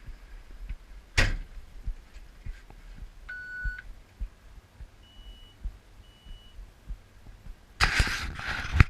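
A single sharp thunk about a second in, then one electronic beep and, a couple of seconds later, two short higher-pitched beeps; a loud burst of rustling near the end.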